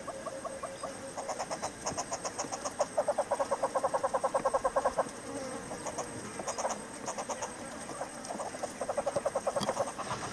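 Southern yellow-billed hornbills calling: long runs of rapid clucks, about ten a second, in several bouts, loudest in a sustained run around the middle.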